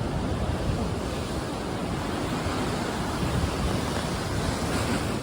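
Mediterranean surf washing steadily onto the beach, with wind rumbling on the microphone.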